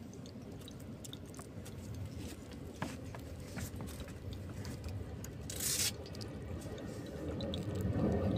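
Low steady rumble with scattered small clicks and scrapes of hands handling gear, a short hiss about five and a half seconds in, and the rumble growing louder near the end.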